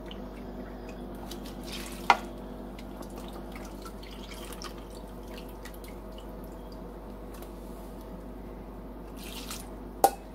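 Chicken broth pouring and dripping from a carton into a measuring cup, then tipped into a bowl of dry rotini pasta. A sharp knock about two seconds in and another near the end.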